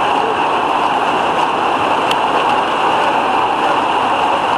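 Heavy rain falling steadily, a loud, even hiss with no break.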